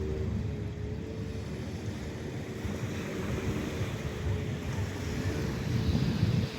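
Steady low rumble of sea and wind buffeting the microphone, with a faint steady hum underneath and a little more hiss near the end.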